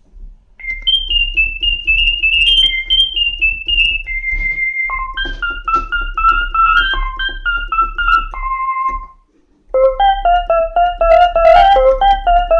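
Kawai FS660 portable keyboard playing a quick melody on one of its built-in voices: a run of high notes, joined by a lower line about five seconds in. It breaks off briefly about nine seconds in, then starts again with fuller, layered notes.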